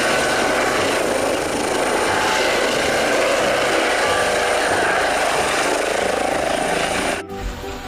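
Eurocopter EC135 air ambulance helicopter flying low, its rotor and turbine noise steady and even, cutting off abruptly about seven seconds in.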